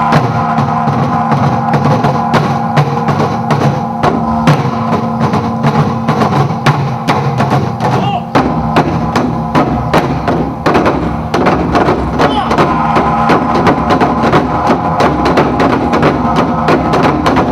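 Music with sustained held tones under frequent, irregular drum and percussion strikes.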